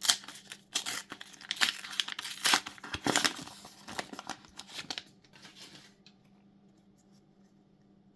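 A trading-card booster pack's foil wrapper being torn open and crinkled: a quick run of rips and rustles that stops about five seconds in.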